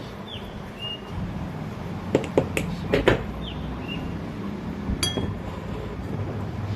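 Small metal parts and tools clinking and tapping a few times while a ceiling fan's bearing is being changed, with a short chirp repeating about every three seconds in the background.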